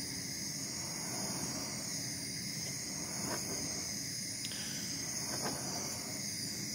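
Handheld gas torch burning steadily with an even hiss as its flame heats the edge of a plastic lens blank to soften it for bending, with a few faint ticks.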